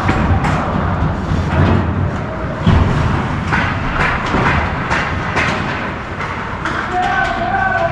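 Hockey game play: repeated sharp clacks of sticks and puck over a steady rink rumble, with a short held call near the end.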